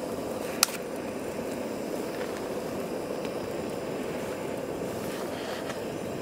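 Handheld butane torch on a gas canister burning steadily as it lights campfire kindling, a constant low rushing roar. A single sharp click comes about half a second in.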